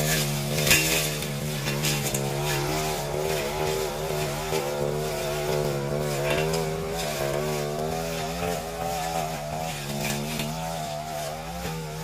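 Backpack brush cutter engine running at working speed while cutting grass and weeds. Its note holds steady and wavers slightly in pitch as the cutting head is swung through the growth.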